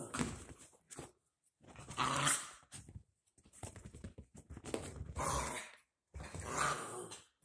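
Two dachshund puppies play-fighting, growling and scuffling in short bouts with brief pauses between them.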